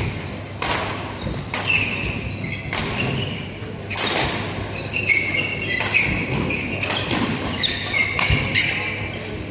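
Badminton singles rally in an indoor hall: sharp racquet-on-shuttlecock hits about once a second, mixed with short high squeaks of court shoes on the floor as the players move.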